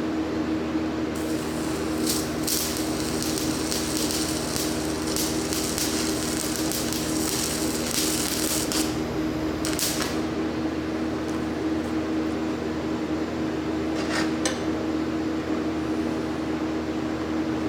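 Stick-welding arc on a cast-iron casting crackling and sizzling for about nine seconds, over a steady electrical hum that carries on after the arc stops. A few sharp clicks come near the end.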